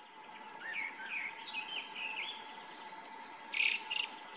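Male grey bunting giving its short, thin ground calls, which resemble a black-faced bunting's. The calls come as a scatter of brief chirps and high ticks, with two louder short notes near the end.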